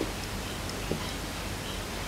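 Steady outdoor evening ambience: an even hiss with a few faint, short high chirps and one light click about a second in. No thunder is heard.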